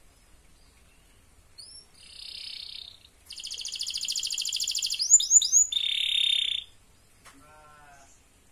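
Domestic canary singing a run of trills: a short buzzy trill, then a long, fast rolling trill, three quick swooping notes and a steady high trill, which are the loudest part, and a softer, lower trill near the end.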